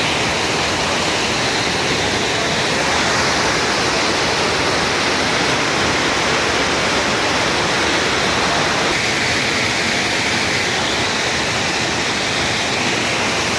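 Waterfall: a steady, loud rush of falling water, its tone shifting slightly about nine seconds in.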